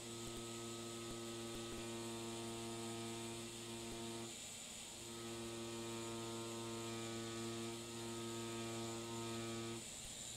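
Tattoo machine running with a steady electric hum as the needle lines lettering on synthetic practice skin. It cuts out for under a second a little past the middle, runs again, and stops shortly before the end.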